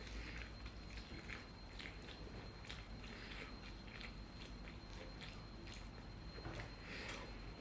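Close-up chewing and wet mouth smacks of someone eating eggs, a quick irregular run of soft clicks.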